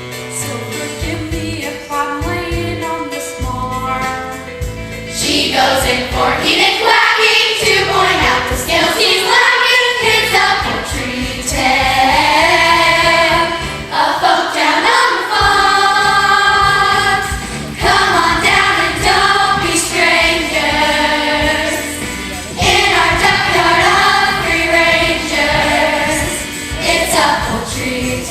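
Young cast singing a musical-theatre number together over instrumental accompaniment; the singing gets louder and fuller about five seconds in.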